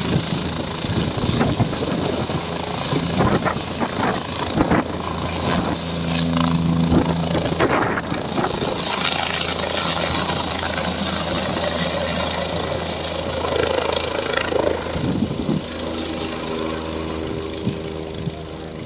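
Single-engine turbine helicopter lifting off at full power: steady engine whine and rotor noise with a repeated blade beat. The noise eases off near the end as it flies away.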